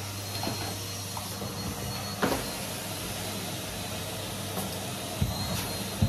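Henry cylinder vacuum cleaner running steadily, a low hum under rushing air. One sharp knock about two seconds in and a couple of lighter knocks near the end.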